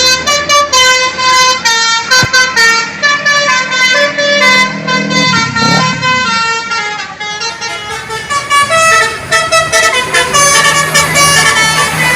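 Bus 'telolet' musical air horn sounding a loud, quick string of short notes that jump from pitch to pitch and repeat, with a brief low swooping sound about halfway through.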